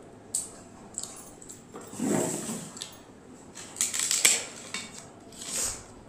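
Crisp fried papad being snapped and crumbled by hand over a ceramic plate, with a cluster of sharp crackles about four seconds in. There are scattered light clicks and a short scrape earlier, from the plate being moved on the table.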